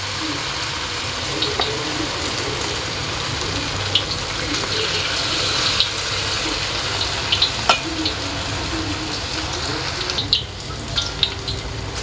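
Vegetable fritter batter deep-frying in hot oil in a wok, a steady sizzle with sharp pops and crackles now and then.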